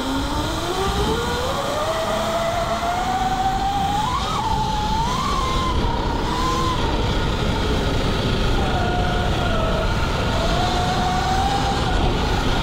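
Sur-Ron electric dirt bike's motor whining as it accelerates hard, the whine climbing steadily in pitch over the first four seconds or so and then wavering up and down as the throttle is eased and reapplied, over a steady rush of wind and tyre noise.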